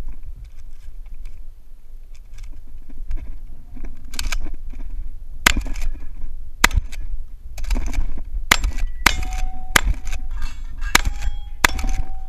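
Benelli Supernova pump-action shotgun: a few seconds of quiet clicks as shells are loaded to finish a reload, then seven shots, about half a second to two seconds apart, with the pump racked between them. Steel targets ring after several of the later hits.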